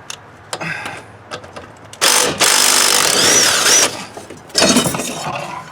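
Impact wrench hammering at the mower's blade bolt in one burst of about two seconds, then two shorter bursts near the end, with light clicks of tool handling before it starts.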